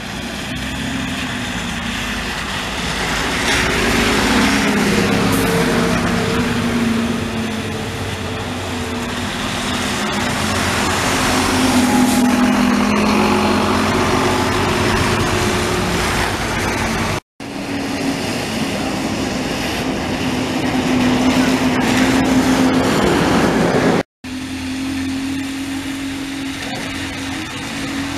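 Diesel buses running and pulling past at close range, their engine tones over road noise. The sound cuts out briefly twice where the clips are joined.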